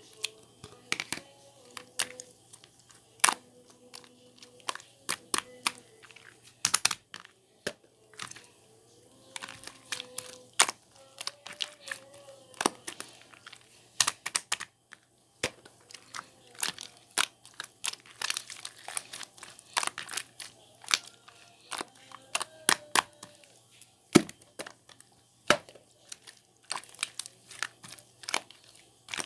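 Slime being squished and stretched by hand: an irregular, steady run of sharp clicks and pops.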